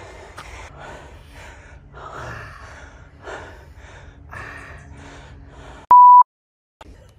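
Ragged gasps and hard breathing, about one breath a second, from a mountain biker winded after a hard crash off a jump. About six seconds in, a short, loud, steady censor beep cuts in, followed by a moment of dead silence.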